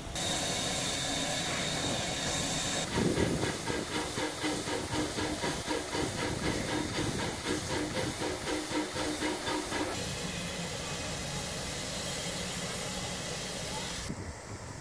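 Pt47 steam locomotive hissing loudly as it pulls away with steam from the cylinders. For several seconds this is overlaid by slow, even exhaust chuffs about twice a second, then the hiss carries on steadily.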